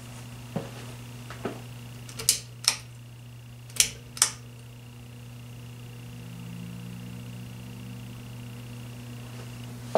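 A new 42-inch Hampton Bay Littleton ceiling fan running: a steady motor hum with a thin high whine, its bearings noisy out of the box. Six sharp clicks come in the first four and a half seconds, the last four in two pairs.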